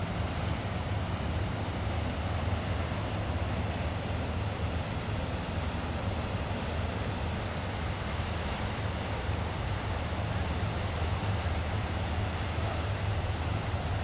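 Steady low drone of a passing Rhine cargo barge's diesel engine, under an even rush of wind on the microphone.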